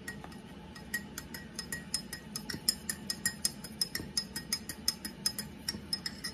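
A metal spoon stirring tea in a glass mug, clinking quickly and repeatedly against the glass, several clinks a second.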